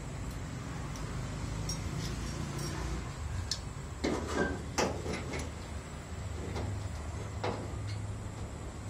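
Sheet metal knocking and clanking as a patch panel is handled and held up into a car's rusted wheel arch, with several sharp knocks, most about halfway through, over a steady low hum.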